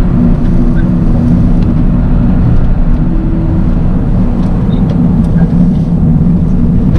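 Toyota GR Yaris's 1.6-litre turbocharged three-cylinder engine running while driving, a steady drone with small shifts in pitch.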